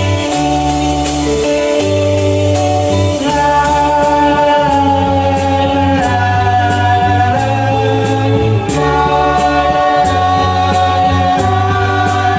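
Music: a song's intro, with a stepping bass line under held melody notes and a light cymbal tick about every two-thirds of a second.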